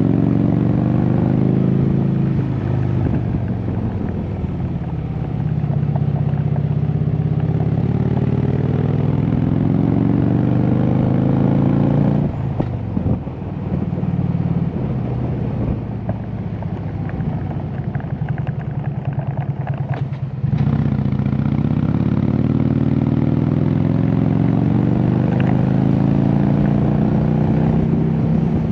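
Harley-Davidson V-twin motorcycle engine under way, its pitch falling as it slows, then rising as it accelerates. The revs drop and it quietens about twelve seconds in, then it comes back louder about twenty seconds in and climbs steadily in pitch.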